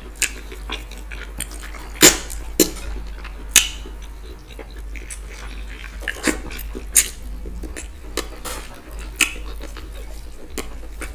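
Close-up mukbang eating sounds: irregular sharp mouth smacks and chewing as fufu with ogbono and okra soup and chicken are eaten by hand.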